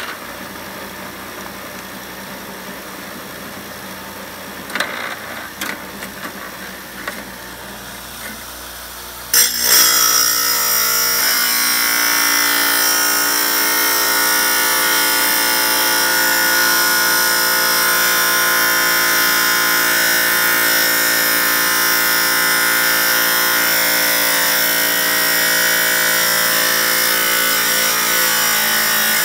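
Chicago Electric wet tile saw running, with a few light clicks about five to seven seconds in; at about nine seconds the blade bites into a small workpiece and a loud, steady, high grinding whine with a stack of tones takes over as the cut goes on.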